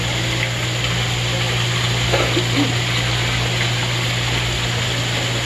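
Water running and bubbling in a live-seafood holding tank, a steady hiss with a constant low hum from the tank's circulation pump.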